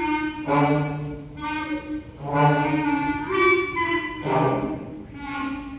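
Middle-school concert band of flutes, clarinets, saxophones and trumpets playing held chords over a low sustained note. A new phrase swells in about every two seconds and eases off before the next one.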